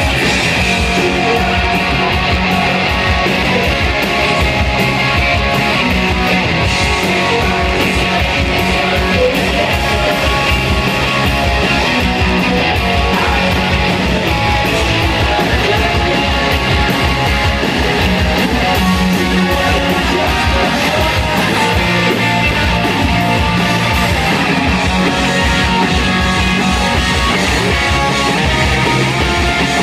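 Live rock band playing at a steady loudness, with distorted electric guitars over bass guitar and a drum kit.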